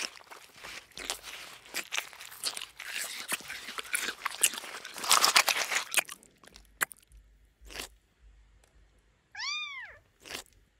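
A kitten crunching dry kibble: rapid, clicky chewing for about six seconds, then only a few scattered crunches. Near the end it gives one short, high meow that rises and falls.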